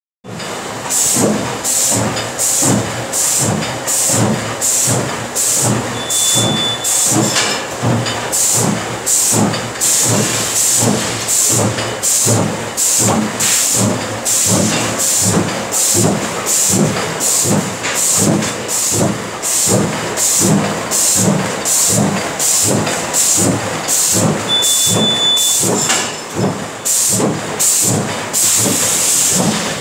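Six-track T-shirt plastic bag making machine with automatic punching, running in steady production. It cycles with an even, rapid clatter of about two strokes a second, each stroke carrying a sharp hiss.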